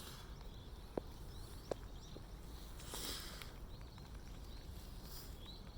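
Faint outdoor ambience with small birds chirping now and then, and two light clicks about one and nearly two seconds in.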